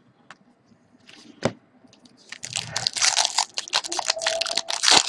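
Foil wrapper of an Upper Deck hockey card pack being torn open and crinkled by hand. A few faint clicks, then from about two seconds in a dense run of crackles.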